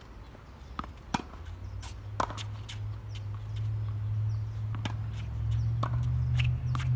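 Tennis balls being struck by racket strings and bouncing on the hard court: several short, sharp pocks at uneven intervals. A steady low hum grows louder in the background from about two seconds in.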